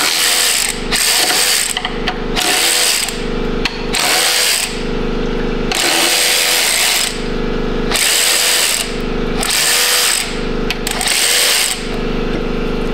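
DeWalt cordless electric ratchet running in about eight short bursts of roughly a second each, backing bolts out one after another.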